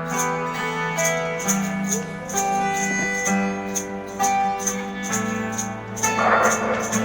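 Live band playing an instrumental passage: held chords over a moving bass line, with a steady high tick about twice a second. A noisy cymbal-like wash comes in about six seconds in.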